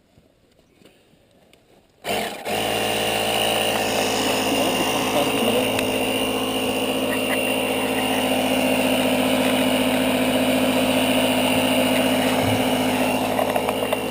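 A portable electric air pump switches on abruptly about two seconds in and runs steadily with a hum and a high whine, inflating the repaired side-by-side tire.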